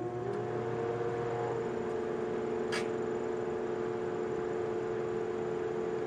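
GE countertop microwave oven running with a steady hum made of several held tones. About three seconds in, a single sharp crack: the aluminum foil inside arcing once.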